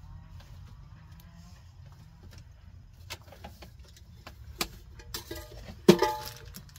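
Kitchenware being handled: scattered light clicks and knocks, then a loud clank with a brief ringing about six seconds in.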